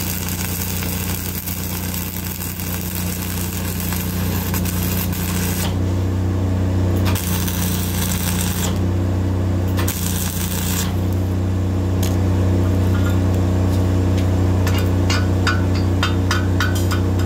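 Flux-cored arc welding with Lincoln Innershield NR-233 wire: the arc crackles and hisses in runs, breaking off twice for a second or two. A steady engine hum carries underneath, and a quick series of sharp clicks builds near the end.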